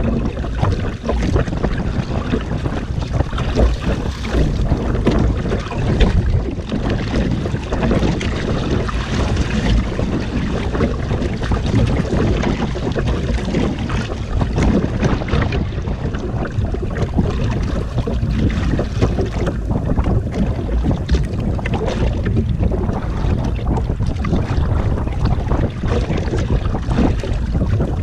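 Steady wind rumble on the microphone, with sea water splashing and churning against the hull and outrigger floats of a small outrigger boat.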